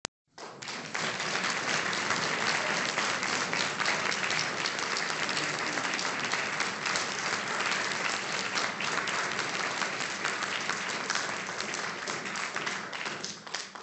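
Outdoor audience applauding: dense, steady clapping that dies away near the end.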